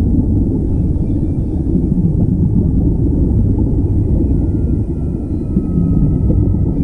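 Steady low underwater rumble with air bubbling, as picked up by a camera in a waterproof housing while air streams up from the divers' air-fed helmets and scuba gear. A faint thin tone slowly falls in pitch a little past the middle.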